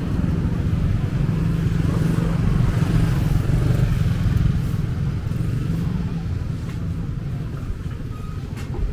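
A motorcycle engine running close by, loudest a few seconds in and then easing off.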